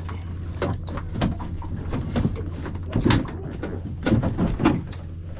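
Irregular knocks and clattering of gear being handled on a small boat's deck as the landing net is grabbed, over a steady low hum.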